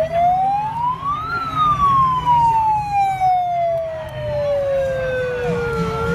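Electronic siren wail from a handheld megaphone's siren function. Its pitch rises for about a second, falls slowly for about four and a half seconds, and starts to climb again near the end.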